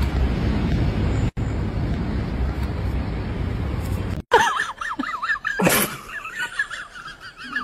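A steady low rumble of background noise that stops abruptly about four seconds in, followed by a high warbling tone that wavers rapidly up and down, with a short hiss partway through.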